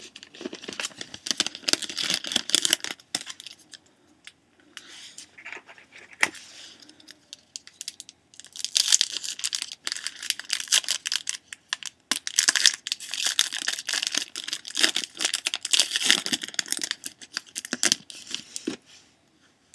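Foil trading-card pack wrappers being torn open and crinkled, in three spells of dense crackling, the longest running from about a third of the way in to near the end.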